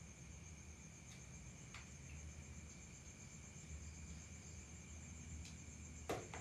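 Faint, steady trilling of crickets at night, with a low hum beneath. A few soft clicks sound, then a sharper knock just before the end.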